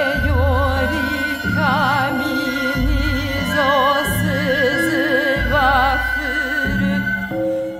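Stage music for dance: a voice singing long notes with a wide, slow vibrato over steady held tones, with low notes changing every second or so beneath.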